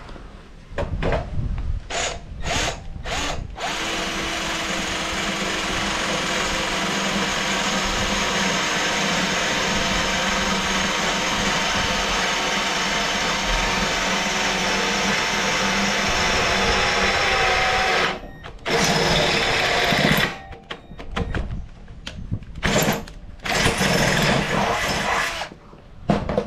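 Milwaukee cordless drill boring through clamped steel angle. A few short trigger blips start it, then it runs steadily for about fourteen seconds as the bit cuts. It stops about eighteen seconds in and is followed by several short bursts.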